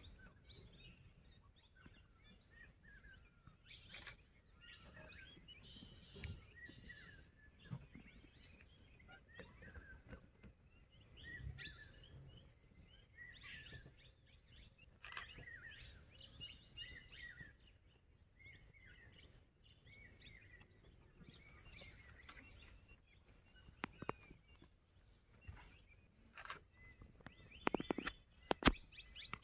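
Wild birds calling and chirping, many short whistles and chirps overlapping, with a loud, fast trill for about a second just past the middle. A few sharp knocks near the end.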